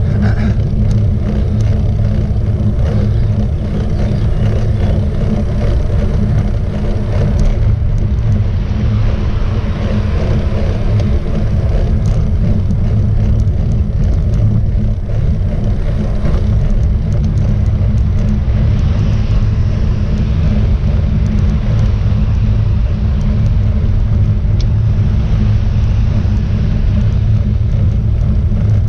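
Wind buffeting the microphone of a camera riding along on a road bike, a loud, steady low rumble.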